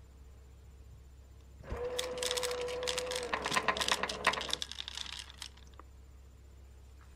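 Battery-powered LUSMO automatic pet feeder dispensing: its motor hums steadily for a second and a half from nearly two seconds in, while dry cat kibble clatters out into the bowl. The rattle thins out and stops about five and a half seconds in.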